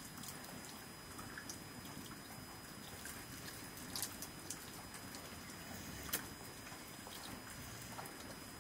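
Faint, scattered clicks and taps of hands and food against metal plates and bowls while eating rice with the fingers, over a low steady background hum; the sharpest taps come about four and six seconds in.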